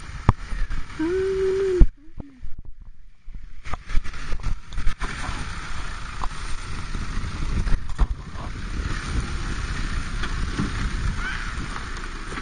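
Wind buffeting the microphone over a Nissan Patrol common-rail turbo-diesel 4WD crawling down a rocky track, with scattered crunches and knocks of its tyres on loose rock. The sound drops out briefly about two seconds in.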